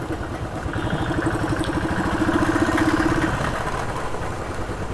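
Motorcycle engine running at low speed as the bike rolls along, an even pulsing beat that grows a little louder in the middle and then eases off.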